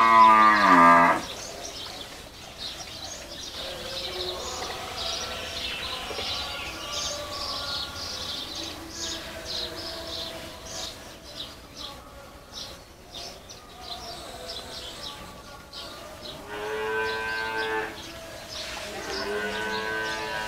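Cattle mooing: a loud moo falling in pitch at the start, then two shorter moos near the end.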